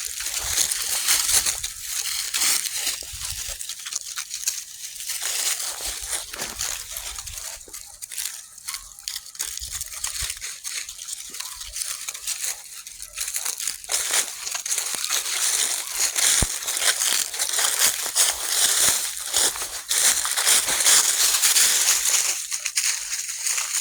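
Dry leaves crunching and rustling as puppies scramble and play through a leaf-filled ditch: a dense, irregular crackle that keeps going without a break.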